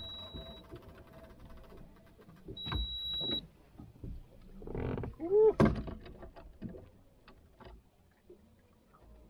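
A fishing rod and reel being worked to fight a fish from a deep drop, with scattered light ticks and knocks of the tackle against the boat. Two short high beeps come near the start and about three seconds in, and a louder thump with a brief bending pitched sound comes about halfway through.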